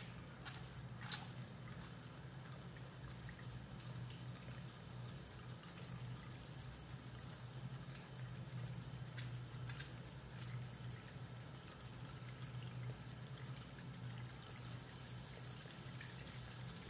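Tap water running faintly into a washbasin, with the soft wet sounds of soapy hands rubbing together and a steady low hum underneath.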